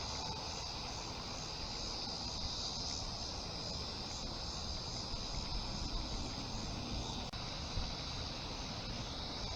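Steady outdoor ambience: a constant high-pitched insect drone over a low rumble, with a single sharp click about seven seconds in.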